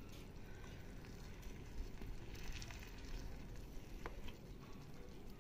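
Turkey pieces sizzling faintly as they brown in a clay tajine over charcoal, stirred with a wooden spoon, with a few light clicks.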